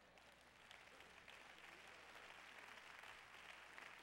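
Faint, scattered applause from a church congregation.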